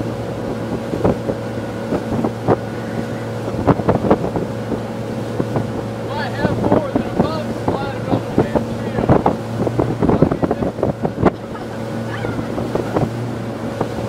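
Motorboat engine running at a steady pitch under way on a lake, with wind on the microphone and irregular slaps and splashes of water against the hull.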